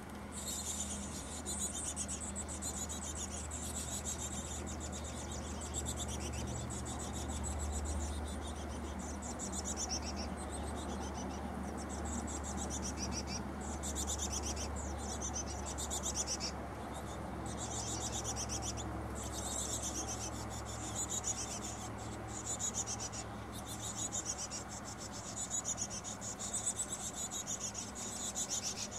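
Carolina chickadee nestlings begging inside the nest box: a high, rapid, raspy chatter in bouts with short breaks, over a low rumble.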